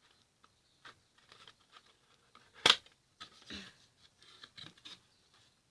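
Small clicks and rustles of objects being handled, with one sharp, loud click a little before halfway.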